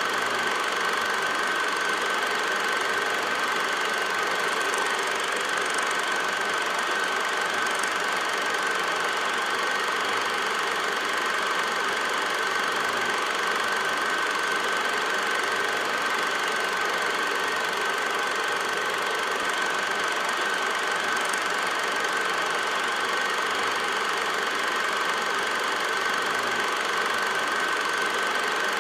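8mm film projector running: a steady mechanical whir with a constant high-pitched tone, unchanging throughout.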